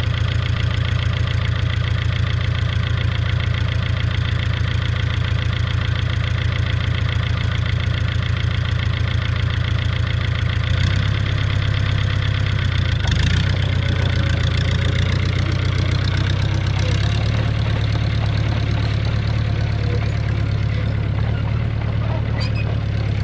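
Fiat 411C crawler tractor's four-cylinder diesel engine idling steadily. About eleven seconds in its note changes, and a clunk follows a couple of seconds later, as the crawler moves off and drives away.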